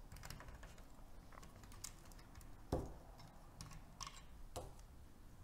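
Faint clicks of hard LEGO plastic as the X-Wing model's hinged cockpit canopy is handled and lifted open: a handful of small clicks, the sharpest a little past halfway.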